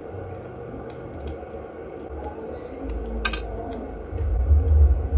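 Small metallic clicks and clinks of steel tweezers working at the connectors of a phone motherboard, the sharpest about three seconds in. A low rumble rises under them near the end.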